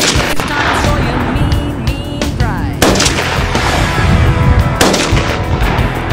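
.308 rifle shots: three sharp cracks, one right at the start, one nearly three seconds in and one near five seconds in, each with a short reverberant tail. Background music plays underneath.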